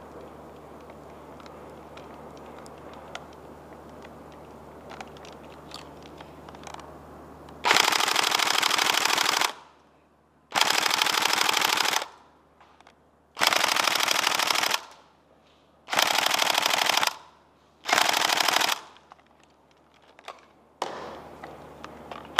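Tokyo Marui Next Gen SCAR-L airsoft electric gun firing five full-auto bursts of one to two seconds each, with short pauses between them, starting about eight seconds in; the last burst is the shortest. Before the first burst there is only a faint low hum with small ticks.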